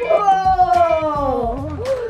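A long, high, voice-like cry that rises briefly and then slides slowly down in pitch for about a second and a half, wobbling at the end, over background music.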